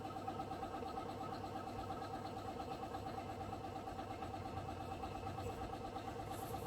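Small single-cylinder motorcycle engine idling steadily with an even, fast beat.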